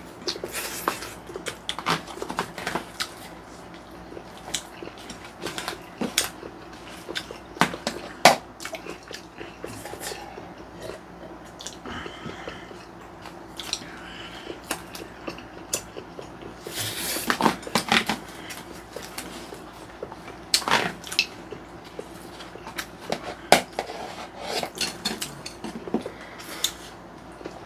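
Two people eating: chewing, with spoons and chopsticks clicking and scraping irregularly against plastic takeout trays and a plate, a denser clatter about two-thirds of the way through.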